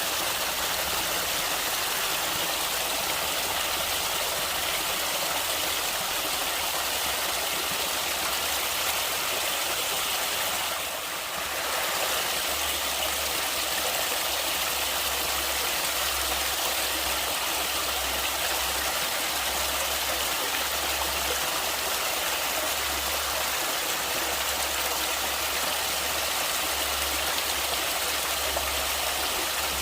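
Stream or river water rushing over rocks, a steady even rush that dips slightly for a moment about eleven seconds in.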